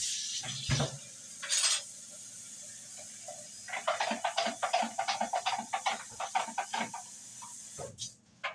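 Steady steam hiss from a pressure cooker on a gas stove. About four seconds in, a quick, irregular clicking rattle joins it and lasts about four seconds.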